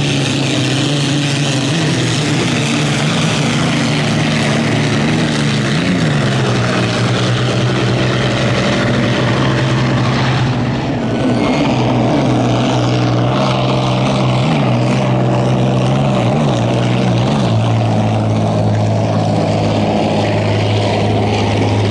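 Vintage hydroplane racing boats' Allison V-12 WWII aircraft engines running hard at racing speed: a loud, steady, deep engine drone whose pitch dips and recovers a few times, with a change in its sound about halfway through.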